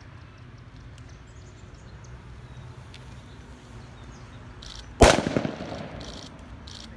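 A firework set off on a demonstration table explodes with one sharp, loud bang about five seconds in, followed by a short echo.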